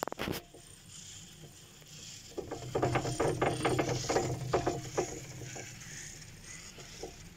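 Fixed-grip double chairlift's chair grip and haul rope running over a lift tower's rope rollers. A sharp clack at the start, then about two and a half seconds of rapid clattering over a low hum, which fades away.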